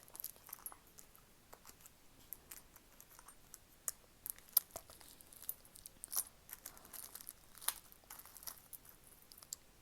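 Close-miked ASMR handling of makeup items: scattered small taps, clicks and crinkles, several sharper clicks standing out.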